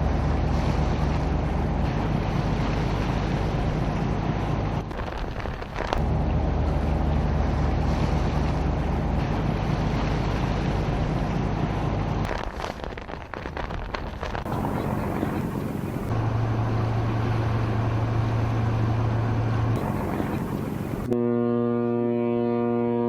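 Steady machinery hum with wind and sea noise from a diesel-electric submarine under way, changing abruptly at several cuts between shots. Near the end a held, horn-like musical chord comes in.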